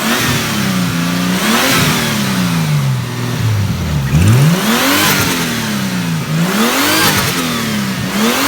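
Toyota Supra Mk3's 3-litre 7M-GTE turbocharged straight-six blipped about four times, each rev rising and then falling back over a second or two. A new open air filter sits on the turbo intake, fitted to bring out turbo flutter.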